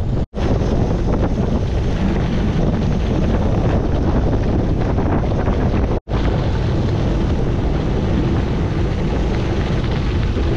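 Wind buffeting a bike-mounted action camera's microphone, over the rumble of gravel bike tyres rolling fast on a rough gravel road. The sound cuts out for an instant twice.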